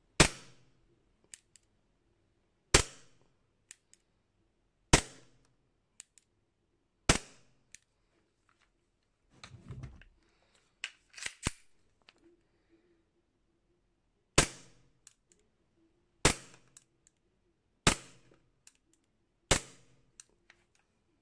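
Archon Firearms Type B gas-blowback airsoft pistol firing eight single shots, each a sharp crack with the slide cycling. The shots come about two seconds apart, four in the first half and four in the second, with a pause in the middle filled by a few small clicks and handling noise.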